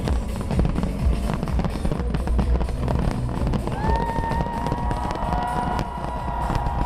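Fireworks bangs and crackles over loud music played for the display, with deep booms throughout. About four seconds in, a long steady held note comes in over them.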